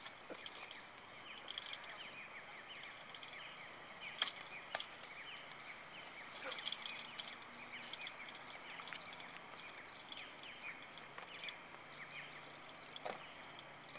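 Faint riverside ambience of many small birds chirping continuously, short falling chirps overlapping one another, with a few soft knocks here and there.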